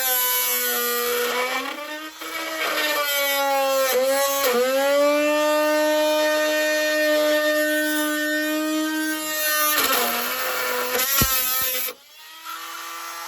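Small electric power tool cutting through a truck's cowl panel. The motor's whine sags in pitch under load twice early on and recovers, runs steady, then cuts off suddenly near the end.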